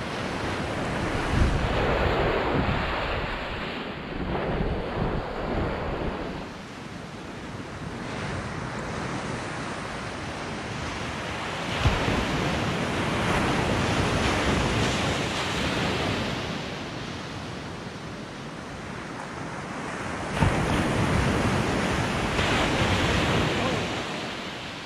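Ocean surf washing onto a beach, swelling and easing every few seconds, with wind noise on the microphone.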